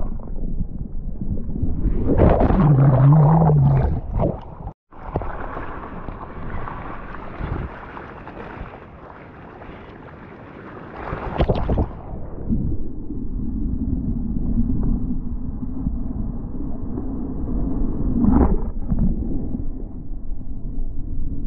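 Seawater rushing and churning around a surfer's GoPro in breaking-wave whitewater, with a brief wavering hum about three seconds in. After a sudden cut comes a muffled hiss of water, then from about twelve seconds the steadier low rush of a barreling wave as he rides inside it, with a splash near the end.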